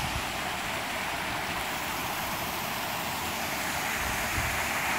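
Steady rush of running water in a concrete trout-rearing raceway.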